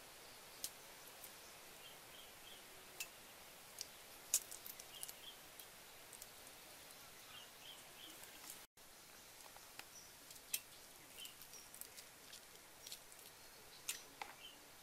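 Scattered sharp little clicks and cracks of eggshell as hard-boiled eggs are peeled by hand. A small bird chirps in quick pairs over quiet outdoor ambience.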